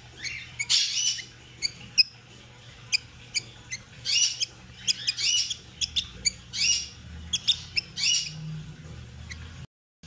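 Baby budgie chick squawking repeatedly while held and having its splayed legs braced, a string of short harsh calls mixed with quick chirps, the loudest about a second in and then every second or so.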